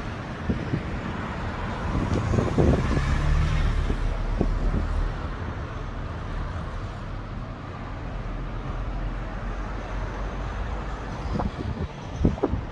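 Road traffic going by, with wind buffeting the microphone in low rumbles and thumps; the traffic swells louder for a few seconds about two seconds in.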